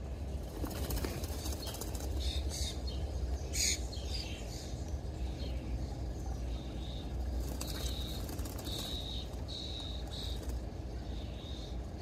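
Small songbirds bathing in a shallow pond: fluttering and splashing in the water during the first few seconds, then short, high chirps repeated in the second half, over a steady low rumble.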